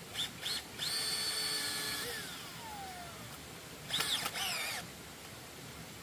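Electric power tool motor triggered in two short blips, then run at a steady high whine for about a second. It is released and spins down with falling pitch, then given another short burst about four seconds in.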